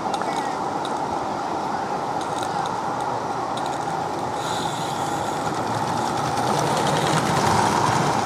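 Mamod SL4 'Princess of Wales' model steam locomotive and its coaches running on garden railway track. The steady running noise grows louder as the train approaches, with rapid clicking near the end.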